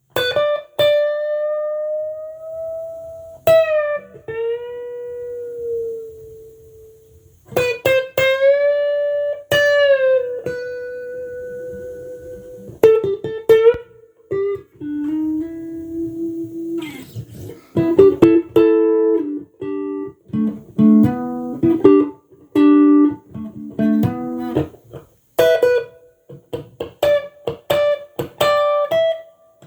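Tomson Spirit Sounds Stratocaster-style electric guitar played solo with a clean tone. It plays long sustained notes with string bends and vibrato, then faster melodic phrases with two-note chords in the second half.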